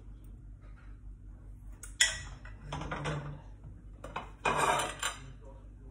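A skillet and utensil clattering against the stove and plate: a sharp metal clank about two seconds in, then a longer clatter about four and a half seconds in.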